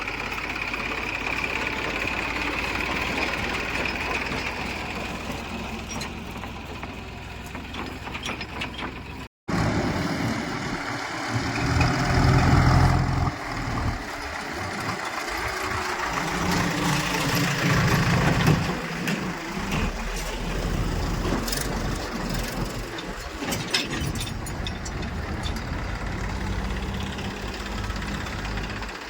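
Diesel engine of heavy machinery running. A cut about a third of the way in is followed by the engine swelling louder twice under load.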